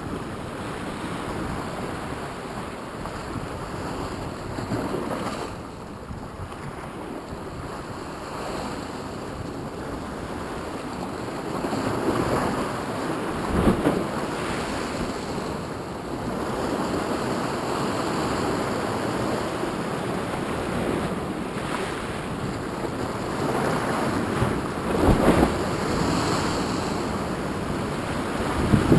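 Ocean surf surging in and breaking over shoreline rocks, with wind on the microphone. The wash grows louder about twelve seconds in, with a few stronger surges after that.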